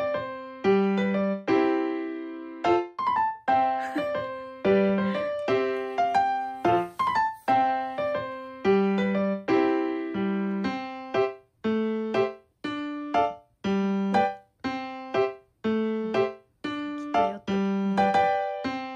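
Background music: a light piano-style keyboard tune of short notes that die away quickly, played at a steady pace.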